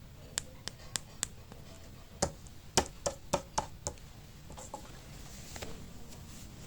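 Sharp clicks and taps from hands handling hard toys and their packaging: four light taps, then a quicker run of six louder ones, and a soft rustle near the end.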